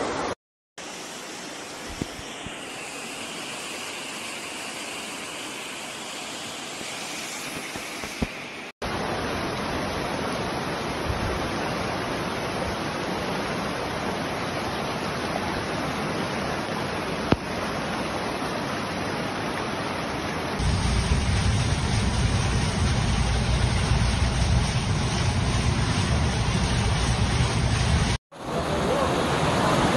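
Floodwater rushing through streets and gushing from a manhole, a steady noisy rush heard in several short clips cut abruptly one after another. One clip near the end carries a heavier, deeper rumble.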